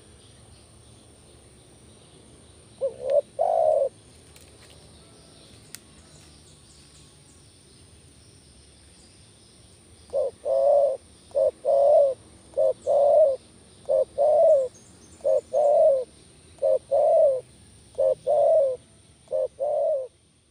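Spotted dove cooing. There is one two-note coo a few seconds in, then from about halfway a steady run of about eight coos, each a short note followed by a longer one, about one every 1.3 seconds.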